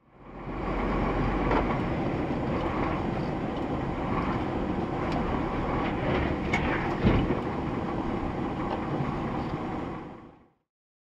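Steady engine and road rumble of a car recorded by its dashcam as it drives and slows, with clicks and one sharp thump about seven seconds in. The sound fades in at the start and fades out near the end.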